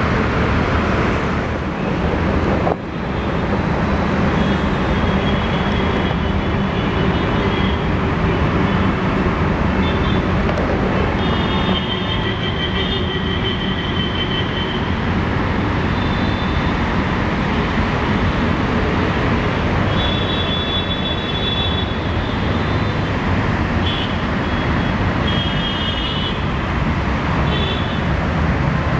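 WAP-4 electric locomotive with its pantograph raised, its blowers and transformer running with a steady low hum.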